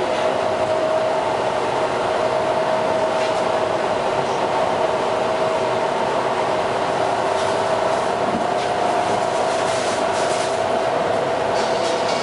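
EP2D electric multiple-unit train running at speed, heard from inside a passenger car: steady running noise of wheels on rail with a constant whine, and a few faint clicks.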